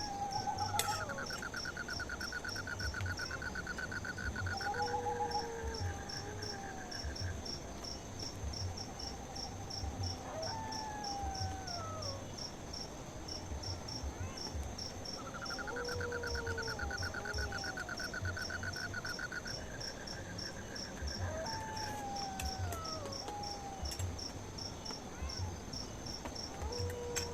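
Night insects, crickets among them, chirping in an even, rapid pulse without a break, with a long buzzing trill that comes in twice. Over them run several separate falling whistled calls from another animal.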